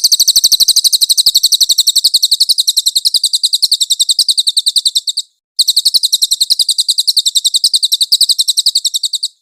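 Cililin bird singing a rapid, high-pitched trill of evenly repeated notes, about ten a second, in two long phrases with a short break just after five seconds.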